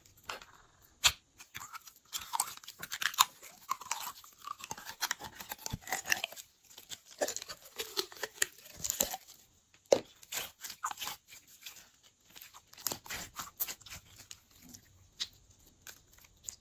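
Glossy green slime squeezed out of a soft plastic bottle and pressed between fingers: a busy run of wet squelches, sticky pops and clicks, with a short lull about halfway through.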